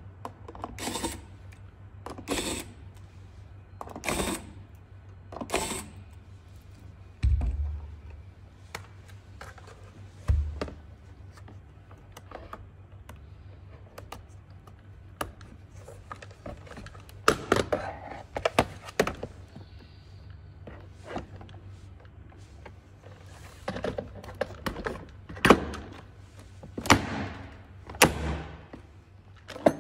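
Hard plastic parts of a children's ride-on toy car being handled and fitted: a long, irregular run of clicks and knocks, with two heavier thuds about a third of the way in and the loudest knocks near the end as a plastic plate is pressed into place.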